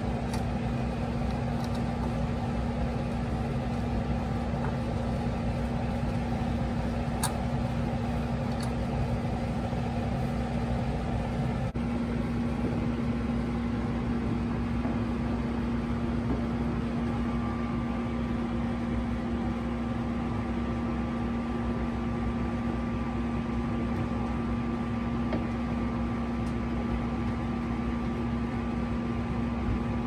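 Steady machine hum with one low drone held at an even level throughout. A few light metallic clicks from tools on brass refrigerant service valves come in the first ten seconds.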